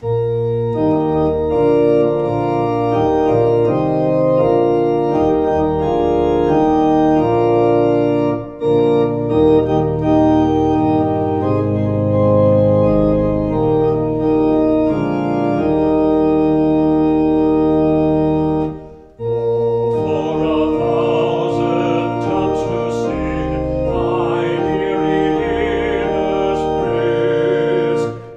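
Two-manual organ playing slow, sustained chords, with a short break a little past halfway before a busier passage begins.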